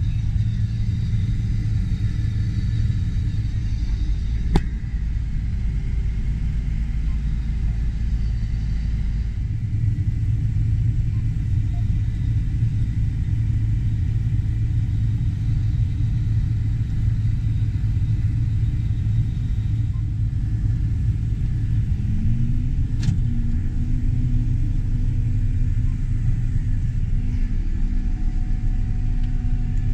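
Harvest machinery running, a steady heavy low rumble. There are two sharp clicks, one about four seconds in and one about two-thirds of the way through. A tone rises briefly just before the second click, then holds.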